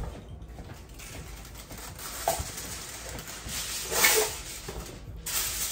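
Reynolds Wrap aluminium foil being pulled out of its box and crinkled as a sheet is drawn off, with a louder crackle about four seconds in.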